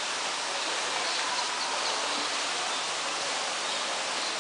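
Steady, even outdoor hiss with a few faint high chirps.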